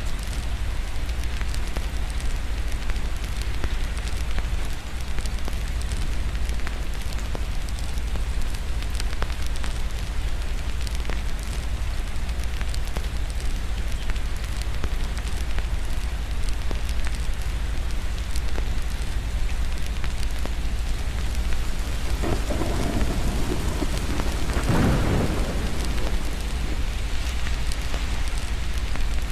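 Steady rain falling with a constant low rumble underneath, and a roll of distant thunder that swells up about three-quarters of the way through and fades again.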